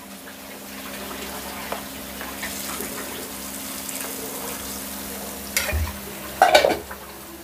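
Hot tempering oil with fried mustard seeds, shallots, dried red chillies and curry leaves sizzling as it is poured from a small pan onto cooked sambar rice in a steel bowl. A steady low hum runs underneath, with a few metal clinks of ladle and pan, the loudest about six and a half seconds in.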